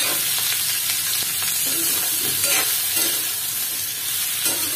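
Sliced tinda (round gourd) sizzling in hot oil in a kadhai, stirred with a metal spatula that scrapes the pan now and then.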